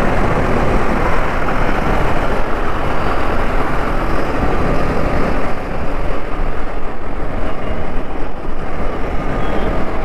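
Riding on a motorcycle: a steady rush of wind noise over the microphone, with engine and road rumble underneath.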